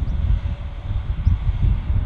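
Wind gusting on the microphone, with a steady distant jet aircraft noise underneath.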